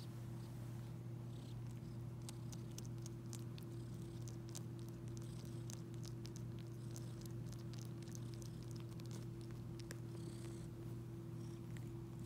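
Long-haired cat purring steadily while suckling on a sheepskin rug as if nursing, with many small clicks and smacks from its mouth working the wool.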